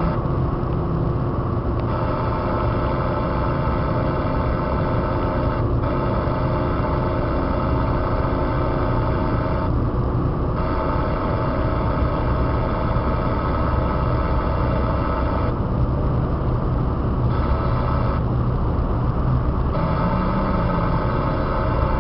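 Steady engine and road noise of a car cruising along a highway, a low, even rumble.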